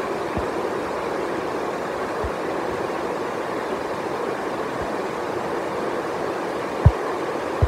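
Heavy rain falling steadily, a dense even hiss, with a few dull low thumps, the loudest near the end.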